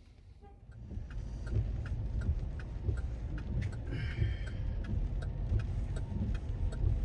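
Car interior while driving in the rain: a steady low engine and road rumble with an even ticking about two to three times a second, and a brief squeak about four seconds in as the windshield wipers sweep.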